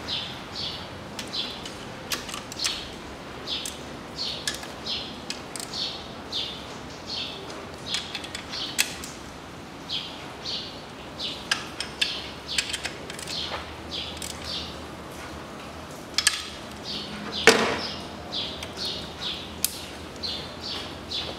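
Ratchet wrench clicking in short repeated bursts, two or three a second, as bolts on the engine's throttle body are tightened, with one louder knock near the end.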